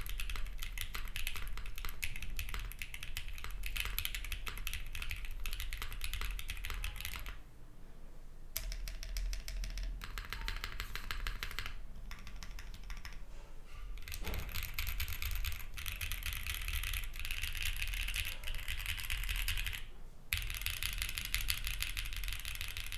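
Fast, steady typing on a mechanical keyboard, a Vertex Arc60 with Sarokeys Strawberry Wine linear switches on an aluminium plate, GMK keycaps and no dampening foam, which the uploader finds a dull sound on the aluminium plate. The typing pauses briefly three times.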